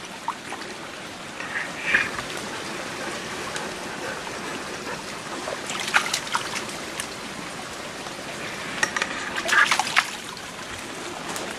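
Small woodland stream trickling steadily, with brief rustles of brush and leaves about six and ten seconds in.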